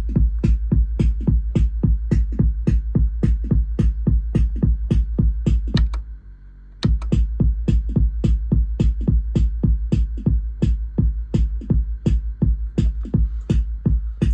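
Roland TR-606 drum machine playing a steady, fast beat pattern of about four hits a second over a low bass. It stops for about a second around six seconds in, then starts again. This is a test run to check that the newly replaced push buttons work.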